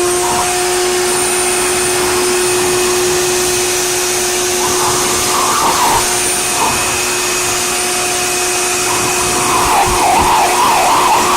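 Electric blower motor running steadily at one pitch after spinning up, with a steady whine over a hiss of air. Patches of rustling come about five seconds in and again near the end.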